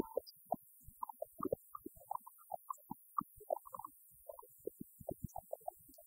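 Background music of short, scattered notes over soft low beats.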